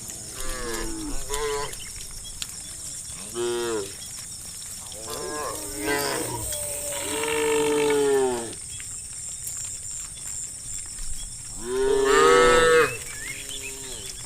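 Cows mooing, several calls one after another: short moos in the first few seconds, a long drawn-out moo about seven seconds in, and the loudest call near the end. A steady high hiss runs underneath.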